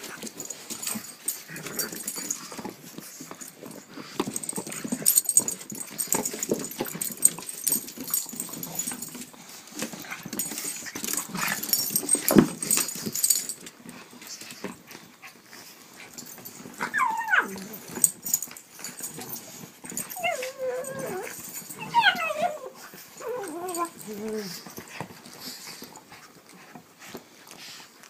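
Pug puppies play-fighting: close scuffling and rustling for the first half. Past the middle come several short high calls that slide down in pitch.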